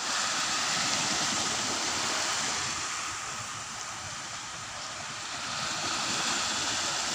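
Small sea waves breaking and washing up a sandy beach, a steady rushing wash that eases a little about halfway through and builds again as the next wave breaks.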